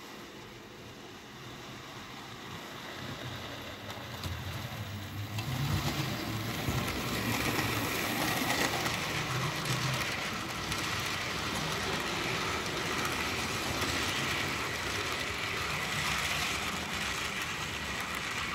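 Model passenger train rolling along the layout track, its wheels and cars running with a steady rattling noise that grows louder as the train comes near, about five seconds in, and stays loud while the cars pass close by.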